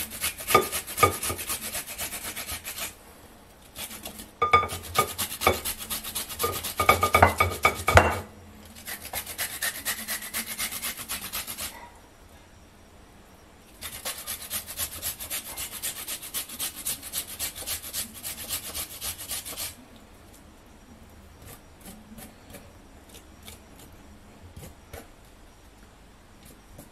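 Fresh ginger grated on a stainless-steel flat grater with quick back-and-forth strokes, in four runs of a few seconds each with short pauses between. In the last seven seconds there are only faint scattered taps.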